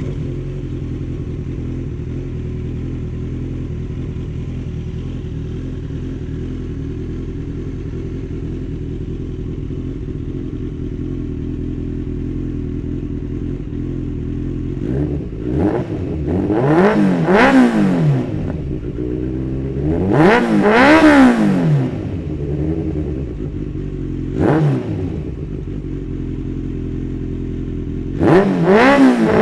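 Kawasaki Z800 inline-four engine through an unbaffled Jeskap carbon 4-2-1 full exhaust, idling steadily just after starting, then revved in several quick blips: two around 16–18 s, a bigger one near 21 s, a short one near 24 s and another near the end.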